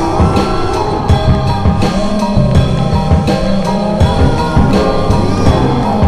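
Background rock music with a steady drum beat and sustained electronic tones.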